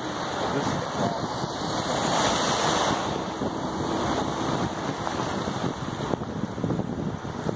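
Sea waves breaking and washing over lava rocks, swelling to a louder wash about one to three seconds in, with wind buffeting the microphone.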